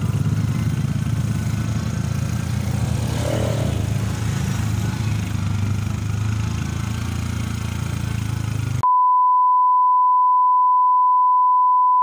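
Motorcycle engine running steadily while riding down a rough hillside lane, with road and wind noise. About nine seconds in it cuts off abruptly into a loud, steady electronic beep at one high pitch, which is the loudest sound.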